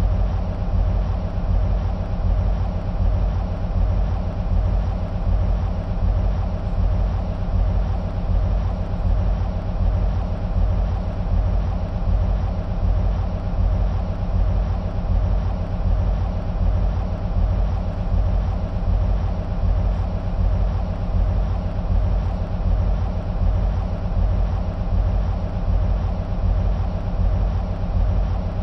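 EMD SW1500 switcher locomotives' twelve-cylinder two-stroke diesels idling: a steady, even low rumble.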